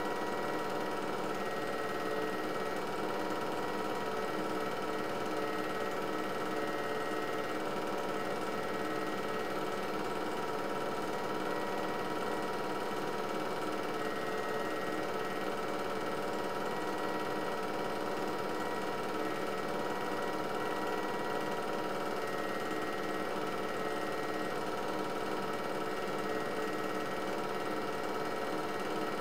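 An 8mm film projector running, its motor and film mechanism making a steady mechanical whirr and hum.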